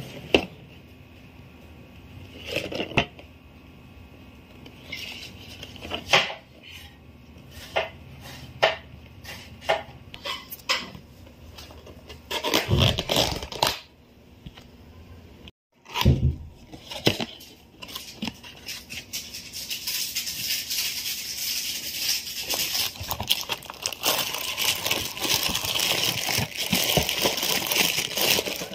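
Cardboard toy box handled and its flaps opened, with scattered taps, knocks and scrapes. From about twenty seconds in, the clear plastic bag around the toy crinkles continuously as it is handled.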